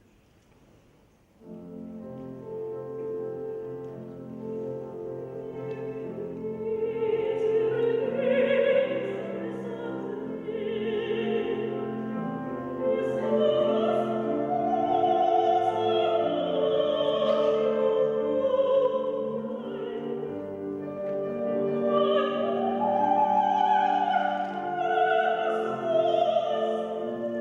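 A Russian art song: the piano begins after a second or so of quiet, and a classical soprano enters with wide vibrato several seconds later, singing over the piano accompaniment.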